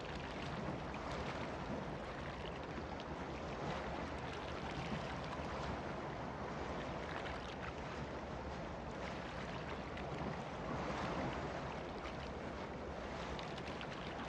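Steady rushing ocean noise with an even, low engine hum beneath it: boat noise.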